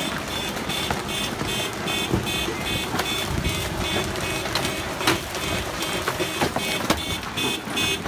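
Hail coming down hard, a steady hiss with sharp hits of stones striking, while a car alarm sounds in rapid repeating beeps that weaken in the middle and come back strongly near the end.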